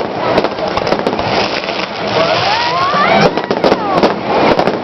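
Fireworks display going off: a rapid series of bangs and crackles, with whistling shells gliding up in pitch around the middle and one falling whistle about a second before the end.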